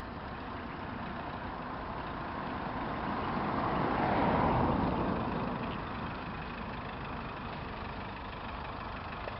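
Nissan X-Trail diesel driving slowly down an off-road slope under hill descent control: a steady vehicle rumble that swells about four seconds in and then fades back.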